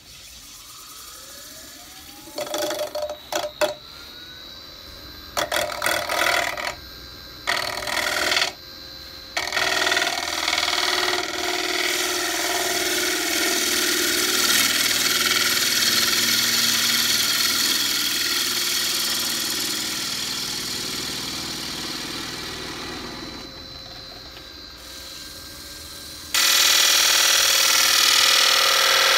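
Small benchtop wood lathe whining up to speed, then a turning gouge cutting a spinning green cherry-wood plate, in short separate bursts at first and then in long continuous finishing passes. About 26 seconds in the cut suddenly grows louder and harsher.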